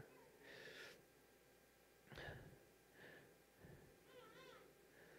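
Near silence: room tone, with a few faint breaths.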